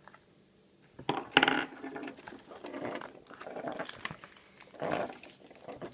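Toy packaging and small plastic toy figures being handled, rustling and clattering, starting about a second in and loudest soon after.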